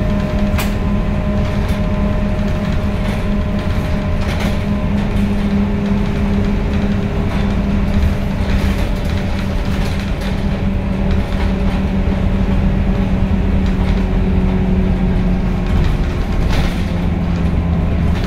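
Scania K230UB bus's diesel engine and ZF Ecomat 6HP502C automatic gearbox running at low speed, heard from inside the cabin: a steady low drone with a whine that slowly falls in pitch, and a few short rattles.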